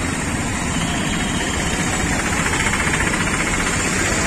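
Engines of vehicles stopped or crawling in congested traffic, with a close engine running steadily at idle.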